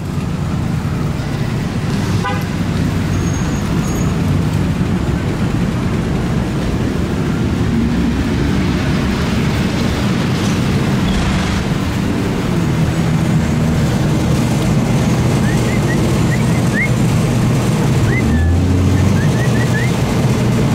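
Loud, steady roar of heavy road traffic, a deep rumble that never lets up, with a few faint high chirps about three-quarters of the way through.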